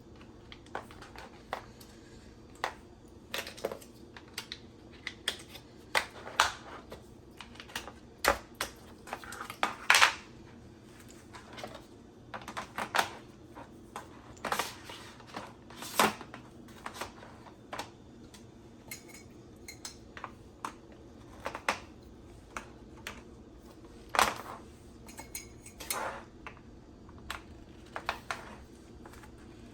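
Rods and braces of an under-sink organizer clicking, clinking and knocking together as they are fitted by hand: a string of irregular sharp clicks and clacks, with louder knocks about 10, 16 and 24 seconds in.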